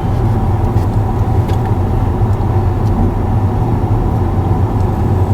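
A car driving at a steady pace: a constant low engine and road rumble heard from inside the cabin.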